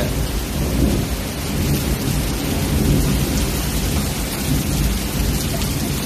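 Torrential typhoon rain pouring onto pavement, a dense steady hiss with a low rumble underneath.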